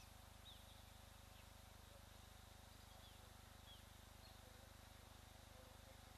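Near-silent outdoor ambience: a few faint, short, downward-falling bird chirps scattered here and there over a faint steady high tone.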